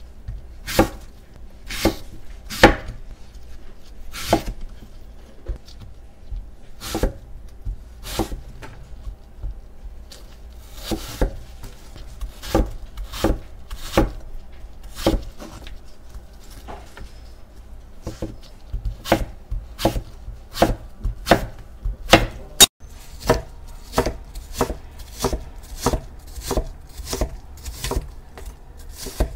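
Cutco kitchen knife cutting apple on a wooden cutting board: sharp knocks of the blade striking the board, about one a second at first, then coming quicker in the second half as the apple is diced.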